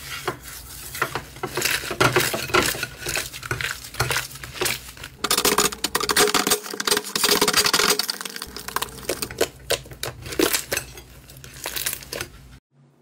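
Slime being squeezed and worked by hand, giving a dense run of crackles, clicks and pops that cut off abruptly near the end.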